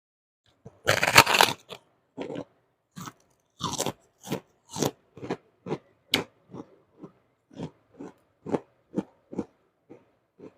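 A person biting into crunchy food close to the microphone, with a loud crunch about a second in, then chewing with mouth sounds at about two strokes a second.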